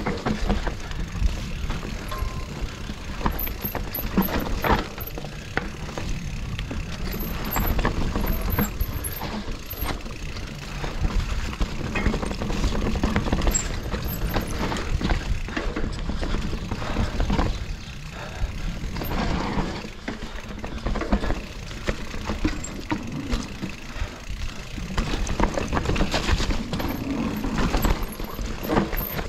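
Mountain bike ridden fast over rough singletrack: the frame and chain rattle and knock irregularly as the tyres hit roots and rocks, over a steady low rumble.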